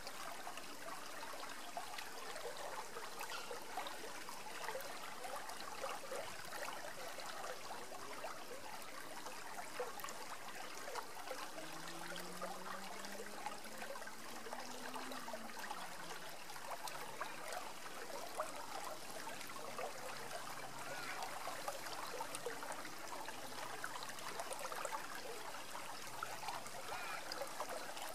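Shallow river rippling steadily over rocks, a continuous even trickling and splashing of water.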